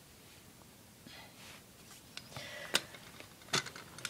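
Quiet room with a few faint rustles and two short, sharp clicks in the second half.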